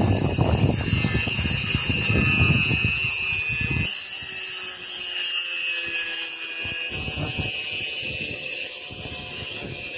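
Angle grinder with a thin cutting disc cutting into a steel leaf spring: a steady high whine over a coarse grinding rasp from the cut. The rasp thins out about four seconds in while the whine runs on.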